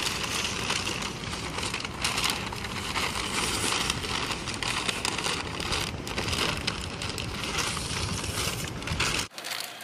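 A large sheet of paper crinkling and rustling as it is handled and folded, with a steady low rumble underneath.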